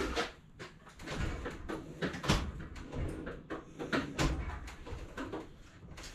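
Irregular knocks and clicks of a metal rolling tool chest being rummaged through: drawers sliding and tools clinking, with the loudest knocks about two and four seconds in.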